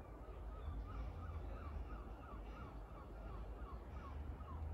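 A bird calling over and over, short pitched notes about three a second, over a steady low rumble.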